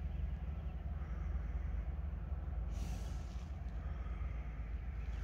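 A horse blowing a short, breathy snort close to the microphone about three seconds in, over a steady low rumble on the microphone.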